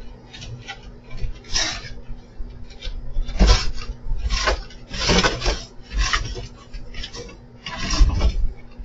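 A cat hissing at a coyote in a run of short, harsh hisses, roughly one a second, with a few dull thumps on the wooden deck.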